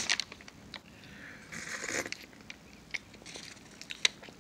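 Quiet mouth sounds of someone tasting chili: a few lip smacks and sharp clicks, with a short noisy rush about a second and a half in.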